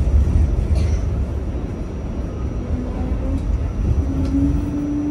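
R68 subway car running through the tunnel, a heavy low rumble of wheels on rail that eases slightly over the seconds. A faint steady hum comes in about three seconds in.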